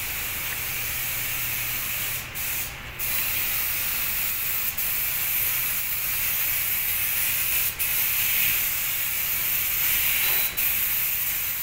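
Compressed-air paint spray gun with a suction-feed cup hissing steadily as it sprays paint, the hiss breaking off for a moment about five times.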